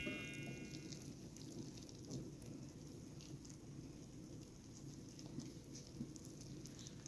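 Faint soft patter and squish of a wire whisk stirring thick banana bread batter in a glass bowl, with a few light ticks. A ringing tone dies away in the first second.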